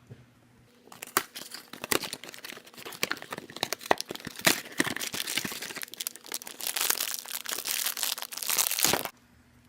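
Blind bag wrapper being crinkled and torn open by hand: a dense crackle with many sharp snaps, starting about a second in and stopping abruptly near the end.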